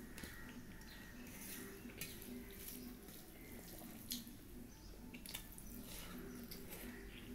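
Soft wet squishing and scattered light clicks of fingers mixing rice with vegetable curry on a steel plate, with chewing, over a faint steady low hum.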